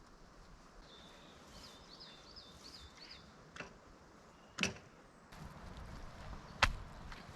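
A bird gives a short run of about six quick repeated high chirps, then three sharp separate knocks, the last one the loudest.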